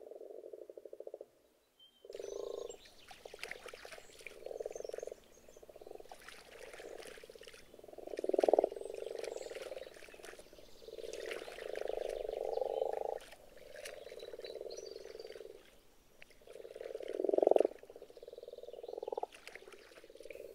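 Breeding chorus of common frogs (grass frogs) calling in a pond: low, purring croaks in overlapping bouts of a second or two. Two calls, about 8 and 17 seconds in, stand out louder than the rest.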